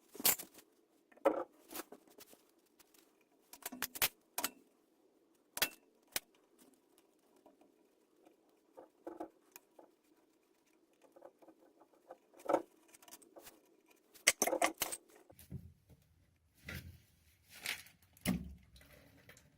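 Hand tools and small metal parts clicking, tapping and scraping in irregular short bursts while an oil burner's fuel pump is opened up to reach its strainer, over a faint steady hum.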